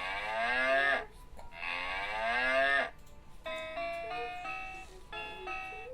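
Cow mooing twice, two long calls, the game's sound for the viewer to identify. From about halfway in, a short electronic tune of stepped notes plays.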